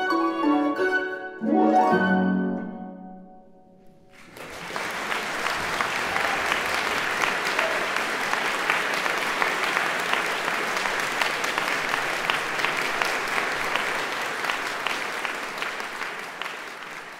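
Flute, viola and harp playing the last notes of a piece, ending on a final chord, with the harp's low strings, that rings away. About four seconds in an audience breaks into steady applause, which fades near the end.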